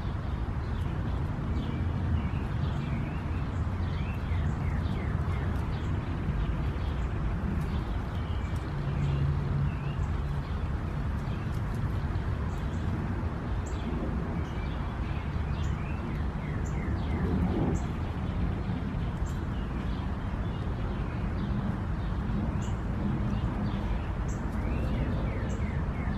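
Backyard ambience: a steady low rumble with small birds chirping again and again.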